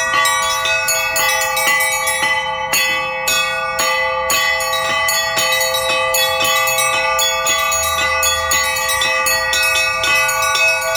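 Russian Orthodox bell ringing on three small treble (zazvonnye) bells and two medium (podzvonnye) bells, struck in a fast, continuous rhythmic pattern of several strikes a second, the tones ringing on and overlapping.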